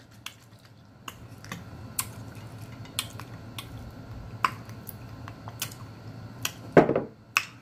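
Hot sauce being shaken from a bottle onto a smoked chicken leg, heard close up: scattered sharp clicks and soft wet sounds over a faint low hum, with one short louder sound a little before the end.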